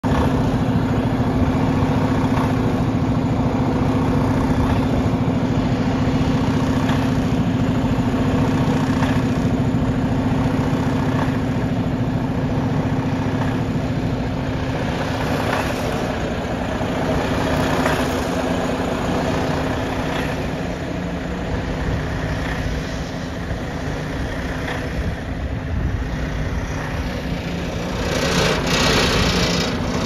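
Heavy diesel engine running steadily with a constant low hum, slightly quieter midway and louder again near the end.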